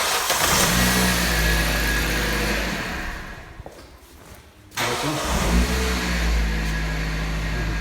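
Car engine cranked by a freshly rebrushed starter motor and catching at once, running for about three seconds before stopping. It is started again just before five seconds in and keeps running steadily.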